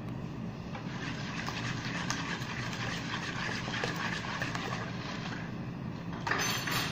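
Wire whisk beating eggs in a wide plastic basin: a steady run of quick swishes and light clicks over a low background hum, with a brief louder noise about six seconds in.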